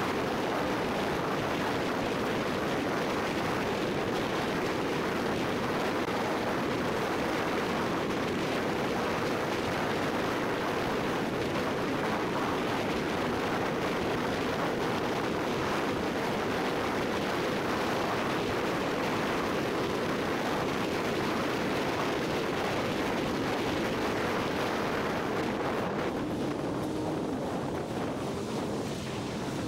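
Steady wind and tyre-on-road rush from a vehicle travelling at highway speed, with no engine note standing out. It turns duller near the end as the vehicle slows in traffic.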